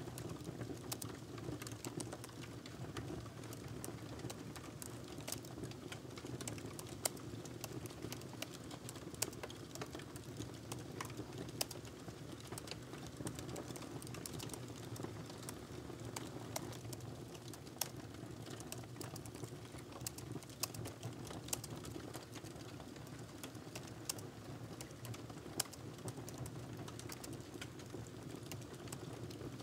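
Typing on a laptop keyboard: irregular soft key clicks, over a steady low background hum.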